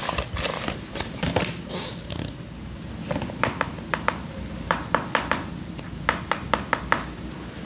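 Plastic toys being handled: rustling and knocking for the first couple of seconds, then a run of sharp light clicks and taps, often in quick pairs.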